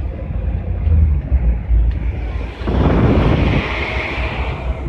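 Low engine and road rumble inside a moving GAZelle van, with a louder rushing swell of wind and traffic noise from a little past halfway to near the end.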